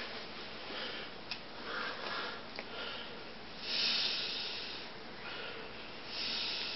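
A person breathing and sniffing, with two louder breaths about four and six seconds in and two faint clicks in the first three seconds.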